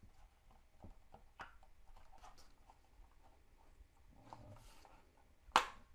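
Plastic case halves of a Fluke 87V multimeter being squeezed and pried apart by hand: faint scattered clicks and rubbing, then one sharp, loud snap near the end as the case comes free.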